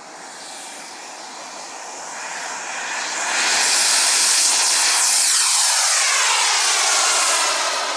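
Radio-controlled model jet's engine running at full power on its takeoff run and climb-out: a steady jet hiss that grows louder over the first three seconds, then stays loud as the model passes.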